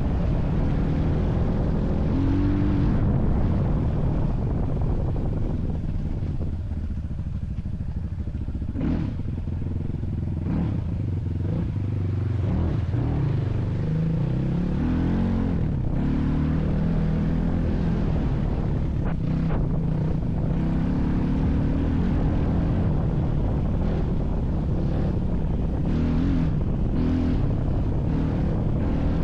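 Motor vehicle engine running under load, its pitch rising and falling with the throttle, with occasional knocks and rattles.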